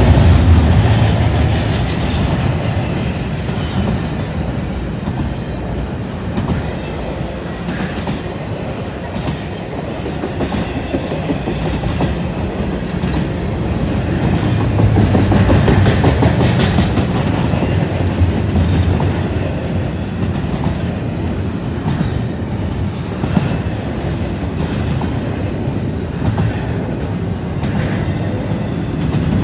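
Norfolk Southern freight train rolling past, its cars' wheels clacking over rail joints in a continuous loud rumble that eases a little then swells again.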